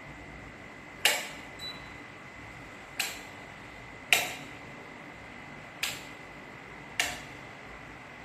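Five sharp single clicks, one to two seconds apart, over a steady hiss with a faint high whine.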